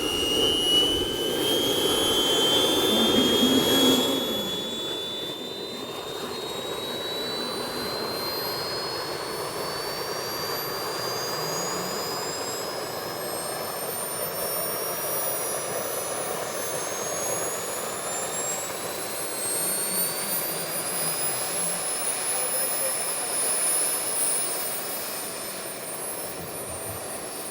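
Twin Jet AMT Olympus model jet turbines on a ground run, their high whine climbing steadily in pitch for about twenty seconds as they spool up, then holding steady near the end. A loud rush of exhaust noise dominates the first few seconds.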